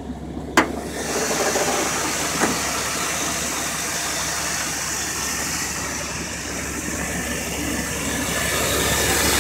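1994 Chevy C1500's 5.7-litre 350 V8 with throttle body injection idling with the hood open: a steady low hum under a broad hiss that grows louder toward the end. A single sharp click comes about half a second in.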